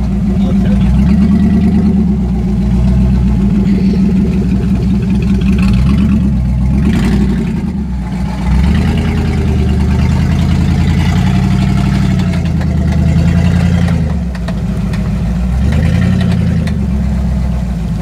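Lifted Jeep Grand Cherokee's engine running at low revs under light, cautious throttle as the truck crawls through deep mud and water, its pitch rising and falling gently several times.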